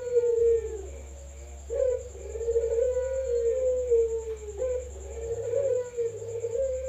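Barbary dove (burung puter) cooing: long, slightly wavering coos, each two to three seconds and falling at the end, one after another. A steady high-pitched whine runs underneath.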